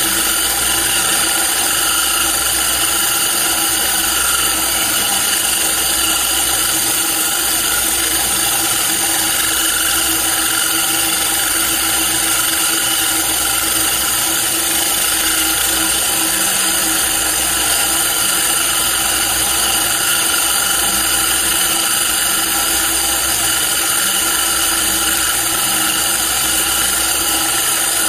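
Handheld electric core drill running steadily under load, its diamond core bit dry-cutting granite with a continuous whine, together with the hiss of an air blow gun clearing the stone dust. A low throb swells about every two seconds.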